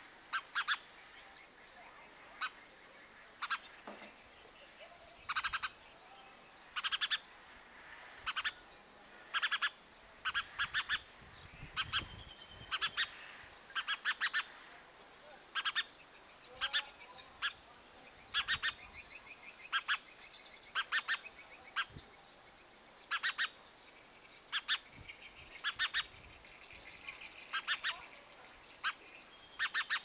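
House sparrow chirping: short, sharp cheeps in quick clusters of two to four, repeated about every second, with fainter twittering of other birds behind.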